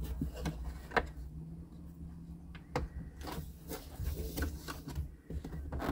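Scattered plastic clicks and knocks from hands pushing and fitting a Jeep Cherokee XJ instrument cluster into the dash, over a steady low hum.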